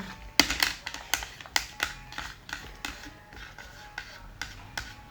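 Slime being squeezed and pressed by hand, giving a run of sharp, irregular clicks and pops, about three or four a second.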